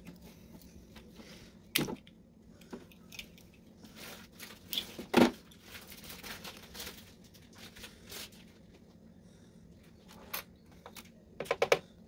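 Plastic case of a refrigerator compressor starter relay being pried open with a flat screwdriver: scattered clicks and cracks of plastic, the loudest about five seconds in, and a quick run of clicks near the end.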